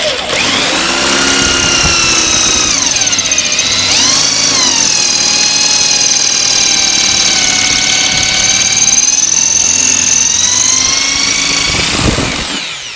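Electric drill running a 7 mm bit into a seized hinge screw head to drill the head off. The whine dips in pitch a few seconds in as the bit bites, holds steady, then winds down near the end.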